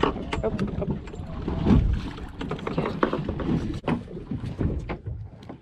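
Wind on the microphone and water slapping against a fibreglass boat's hull, with scattered short knocks and clicks.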